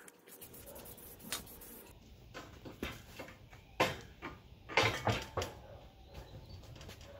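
A faint spray-can hiss for the first couple of seconds, then several sharp metal clunks and knocks as the Badland ZXR 12000 lb winch is set down and shifted on its steel hitch-mount plate, the loudest about four and five seconds in.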